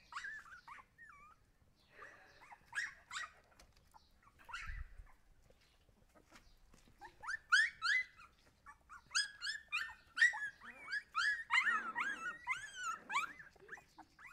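Husky puppies whining and yelping in short, high-pitched cries, a few scattered at first, then a fast run of overlapping cries through the second half. A dull thump comes near the middle.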